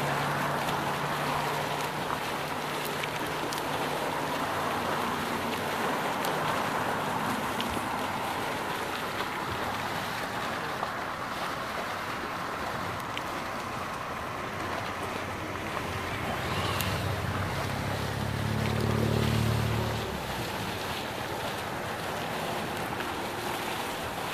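Steady rushing noise of steam venting from mudpots and hot springs, with wind on the microphone and a few faint clicks. A low hum swells and fades about three quarters of the way through.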